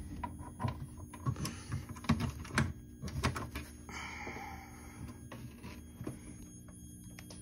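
Key working the lock of a metal electrical control box: a run of small metallic clicks and knocks, then a short scraping rustle about four seconds in, with a few faint ticks after.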